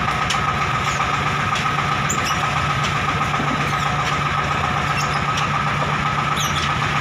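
A homemade ledok dump truck's single-cylinder diesel engine running steadily with fast, even low thumps and a steady high whine over it, while the bed is tipped to dump its load. Scattered faint clinks come from the broken brick rubble sliding off the bed.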